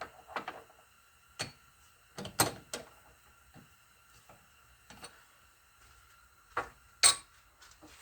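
Scattered metal clicks and clanks of a stainless steel slug being set and clamped in a lathe chuck, loudest near the end, over a faint steady tone.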